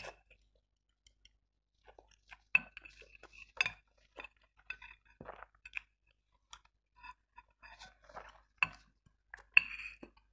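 Chewing black bean noodles, with metal chopsticks clicking against a ceramic bowl several times as noodles are stirred and picked up; the sharpest clicks ring briefly.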